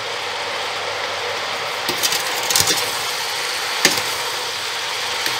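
Metal spoon stirring chopped zucchini, carrot and onion in a stainless-steel pot, knocking against the pot a few times, over a steady sizzling hiss from the pot on high heat.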